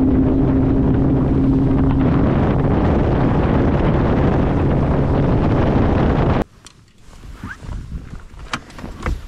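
Bass boat's outboard motor running under way, a loud steady drone with wind rushing over the microphone. About six and a half seconds in it cuts off abruptly to a quiet stretch with a few light clicks and knocks.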